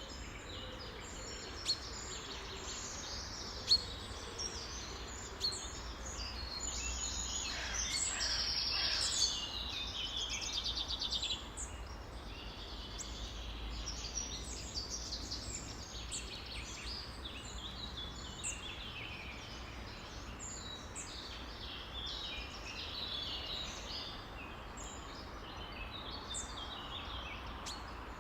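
Many songbirds chirping and singing at once in a dense chorus, with a louder rapid trill from about eight to eleven seconds in. Two sharp clicks stand out about two and four seconds in, over a faint steady low hum.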